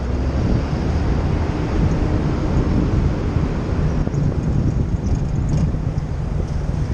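Steady low rumble of wind on the microphone of a camera mounted outside a moving car, mixed with the hiss of tyres and passing traffic.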